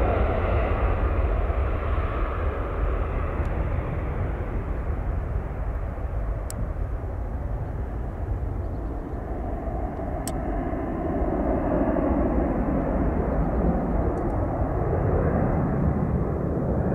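Airplane engine noise: a steady low rumble with a hiss above it, easing a little midway and then building again.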